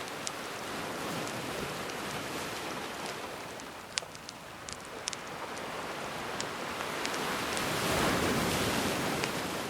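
Gentle sea waves washing ashore, one swell building to its loudest about eight seconds in, with scattered sharp pops and crackles of a wood fire burning.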